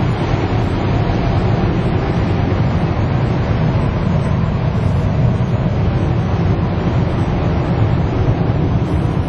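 Steady low rumble with an even hiss over it inside an E5 Series Shinkansen car, at the vestibule by the GranClass door.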